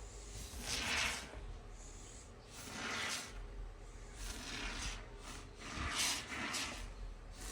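A can of Great Stuff expanding foam spraying in short hissing bursts, about six in all, a second or two apart, as foam is laid into a hole in a golf cart seat cushion.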